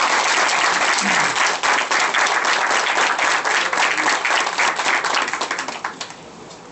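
Audience applauding: dense clapping that dies away about six seconds in.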